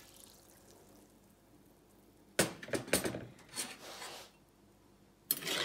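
Kitchen utensils and dishes being handled: near silence for about two seconds, then a run of sharp knocks and clatters, and another clatter near the end.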